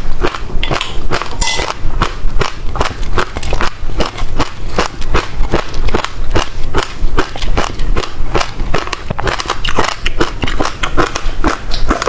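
Passion fruit pulp being chewed close to the microphone, the hard black seeds giving a quick run of sharp, loud crunches and crackles, about three a second.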